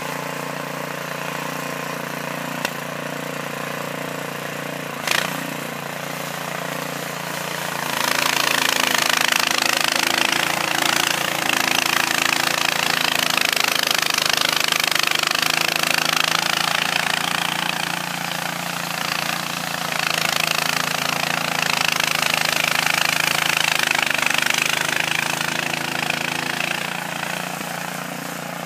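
Cub Cadet snowblower engine running steadily under load while clearing snow, with a sharp knock about five seconds in. From about eight seconds in, a loud rush of snow churning through the auger and out the discharge chute joins the engine, easing briefly past the middle and again near the end.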